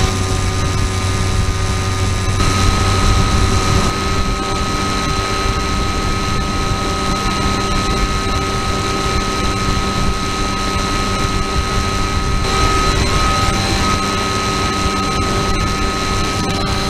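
An FPV model aircraft's electric motor and propeller whining steadily over rushing wind, heard through its onboard camera microphone. The motor's tone shifts slightly a couple of seconds in and again about twelve seconds in.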